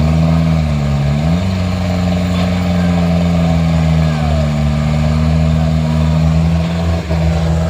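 Diesel engine of a loaded cargo truck running hard under load as it climbs a steep muddy slope. The engine note dips briefly, rises about a second and a half in, then holds steady at high revs.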